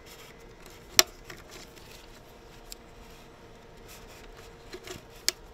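A sharp plastic click about a second in as a Bosch MG1 ECU harness connector's locking tab is released, then faint rustles and small clicks of hands working the plastic connectors, with another small click near the end.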